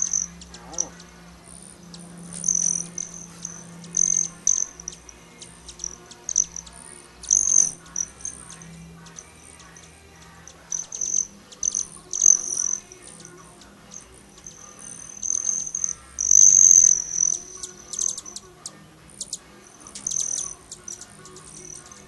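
Hummingbirds' high, squeaky chip and chatter calls in repeated short bursts, with a longer, louder chatter about sixteen seconds in: the calls of hummingbirds sparring over a feeder.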